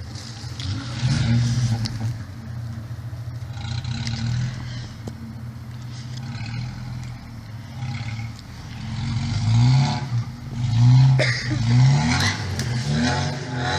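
Off-road 4x4's engine labouring at low revs, then revved up in several short bursts in the second half, with a sharp clunk among them.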